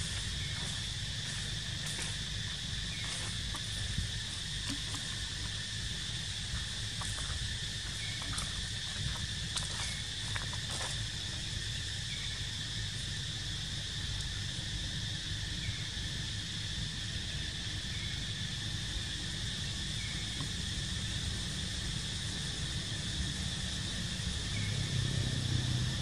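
Steady high-pitched drone of insects, with faint short chirps and clicks scattered through it. Underneath runs a low rumble that grows louder near the end.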